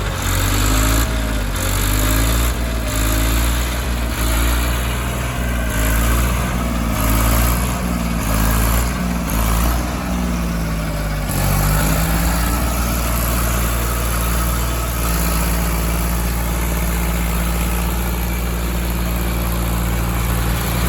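Diesel engines of a backhoe loader and tractors working during a mud recovery. Engine speed rises and falls repeatedly for about the first twelve seconds, then holds steady.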